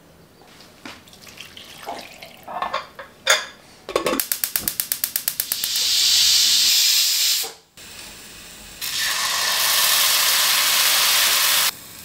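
Stainless steel pressure cooker venting steam: the weight valve chatters in quick even pulses, then gives way to a loud steady hissing whistle that cuts off sharply. A second hissing whistle follows and stops abruptly near the end, the sign that the cooker is up to pressure. A few light clicks and knocks come first.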